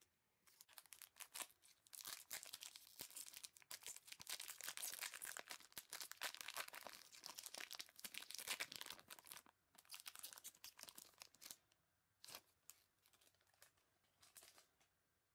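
Epoch J.League trading card pack being torn open and crinkled by gloved hands: a dense run of tearing and crackling wrapper for about ten seconds, then a few scattered crinkles near the end.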